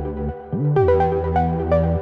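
Electronic background music: held synth chords over a deep bass, with a pitch-sliding bass drop and a brief dip about half a second in before the chords come back.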